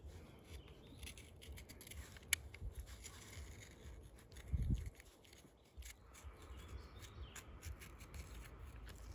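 Utility knife blade slitting the belly skin of a Chinook salmon: a faint run of small scratching, ticking cuts, with a soft low thump about four and a half seconds in.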